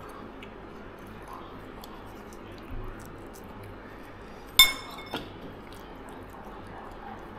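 A drinking glass clinks once, sharply, about four and a half seconds in, and rings briefly. A softer knock follows half a second later.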